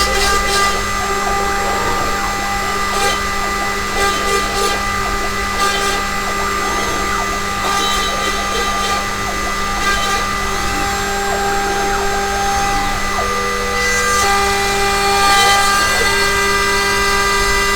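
A DIY CNC router cutting plywood with a single-flute end mill: the spindle runs with a steady whine and short bursts of cutting noise. Near the end the stepper motors' tones rise and fall as the axes change speed.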